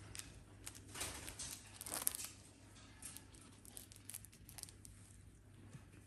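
White cockatoo picking at a toy with its beak: quiet scratchy tearing and crinkling with a few short clicks, busiest around one and two seconds in.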